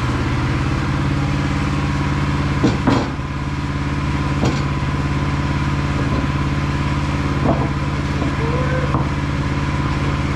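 Woodland Mills HM122 sawmill's engine running steadily, with a few sharp knocks about three, four and a half, and seven and a half seconds in.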